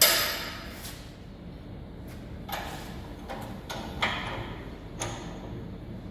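A loud knock that dies away within about half a second, then four or five lighter knocks spread over the next few seconds, with a low steady hum underneath.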